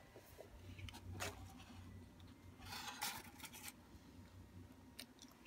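Faint handling noises of hands moving the toys and the cardboard egg box: a brief rustle about a second in and a longer stretch of rubbing and rustling around three seconds, with a click near the end, over a low hum.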